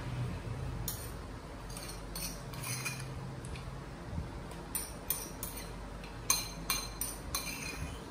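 Metal spoon clinking and scraping against a ceramic bowl while eating: a dozen or so short light clinks spread out, several in quick succession in the second half.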